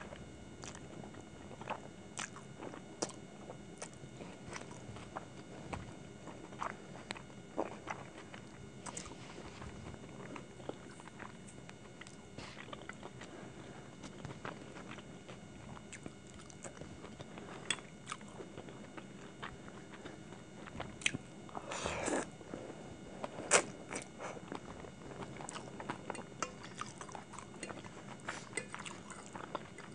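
Close-up eating sounds: chewing and slurping saucy hakka noodles, with scattered sharp clicks of a metal fork on the plate and at the mouth. The loudest clicks and a short noisy burst come about two-thirds of the way in.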